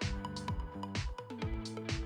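Background music: an electronic track with a steady drum beat and held synth notes.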